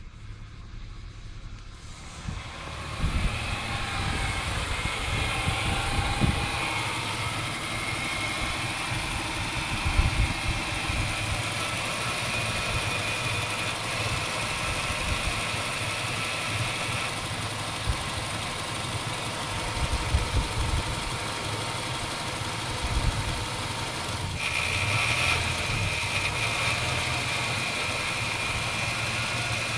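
1996 Ford Falcon EF's 4.0-litre inline-six idling after a quiet first few seconds, with uneven low thuds every few seconds. This fits the idle misfire and stumble the owner describes.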